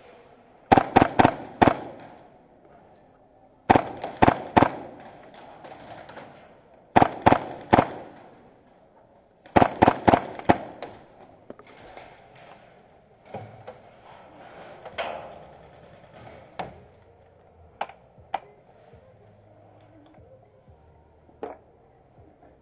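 Skirmish-game replica guns firing rapid volleys of sharp shots, four volleys of about four to six shots in the first ten seconds, then scattered single shots, echoing in a large hall.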